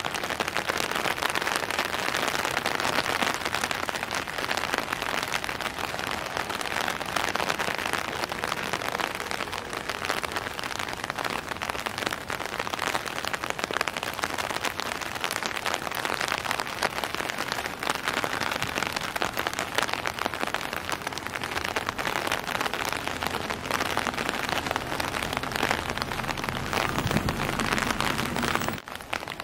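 Steady rain falling, a dense, even patter of drops close to the microphone.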